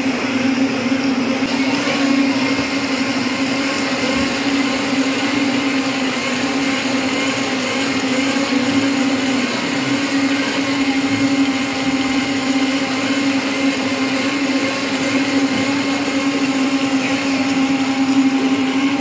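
Commercial countertop blenders running steadily at high speed, blending fruit juice, with an even motor hum that does not change.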